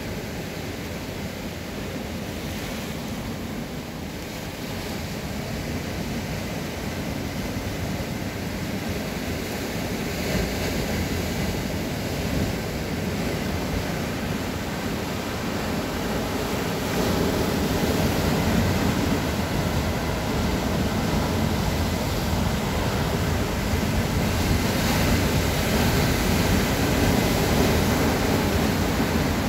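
Rough sea surf breaking and washing over a rocky granite shore: a continuous rushing of water that surges with each wave and grows louder through the second half.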